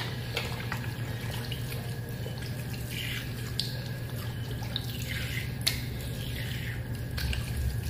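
Water running from a bathroom sink tap, uneven and splashing, over a steady low hum, with a few small clicks.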